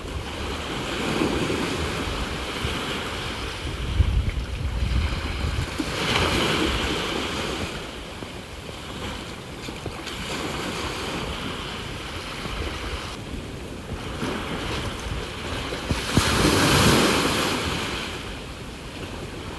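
Sea waves breaking and washing in, about four surges of surf every four to five seconds, the loudest near the end, with wind rumbling on the microphone.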